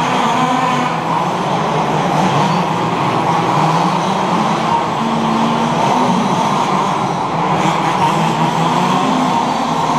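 Several 1/5-scale HPI Baja RC cars racing together, their small two-stroke petrol engines buzzing at shifting revs and overlapping into one continuous din.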